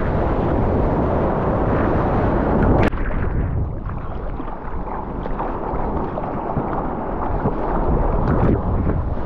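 Wind buffeting the microphone and water rushing as a surfboard rides a wave. About three seconds in it cuts with a click to quieter, duller sloshing of water and splashes from arms paddling the board.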